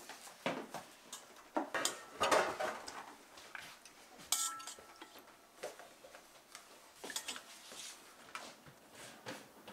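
Kitchen clatter of utensils knocking and clinking against stainless steel pots and bowls, as an irregular string of clicks and taps. About four seconds in, one clink rings on briefly.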